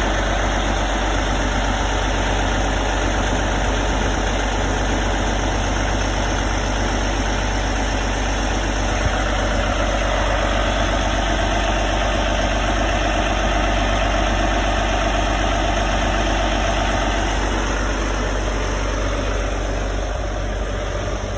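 Large engine running steadily at idle, with a low hum underneath; a mid-pitched tone in it grows a little stronger from about halfway through.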